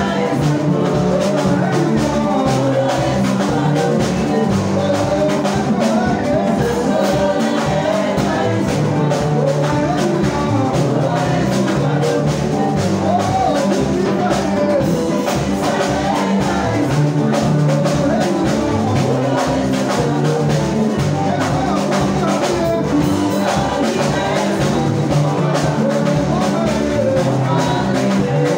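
Live worship music: a praise team of several singers on microphones over an amplified band with drums, keeping a steady beat.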